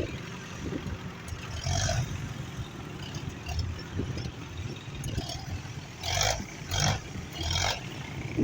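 Tractor's diesel engine running steadily under work, with four short bursts of hiss or clatter, three of them close together near the end.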